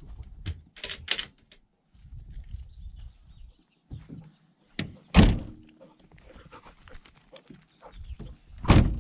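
The Peugeot Boxer van's rear doors are shut one after the other: two heavy thunks about three and a half seconds apart, the second near the end, with lighter clatters before them.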